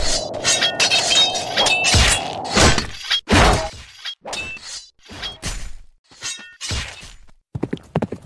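Sword-fight sound effects: a series of sharp metal-on-metal clangs, each ringing briefly, coming thick at first and thinning out after about three seconds. Near the end, rapid horse hoofbeats begin.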